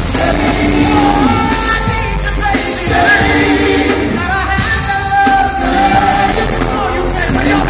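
Loud live R&B concert music: a male singer singing into a handheld microphone over the band's keyboards and backing.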